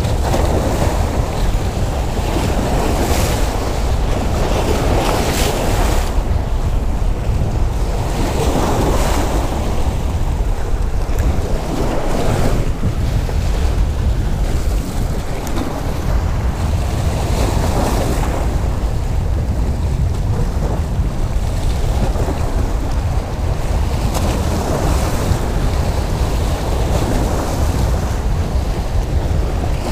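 Waves washing and splashing against jetty boulders, swelling every few seconds, under a steady rumble of wind buffeting the microphone.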